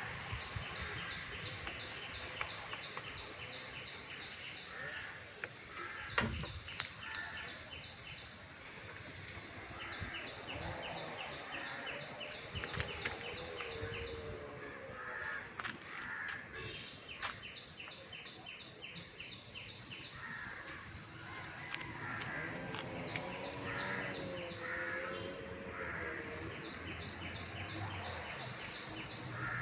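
Birds calling outdoors, with short runs of rapid high chirps recurring every few seconds. A few sharp clicks come in between.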